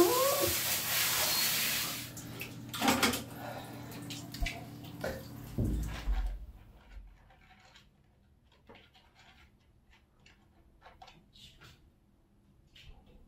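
Handheld shower spraying water over a wet golden retriever puppy, cutting off about two seconds in, with a short wavering whine at the very start. Scattered knocks and a low thump follow, then only faint scattered ticks.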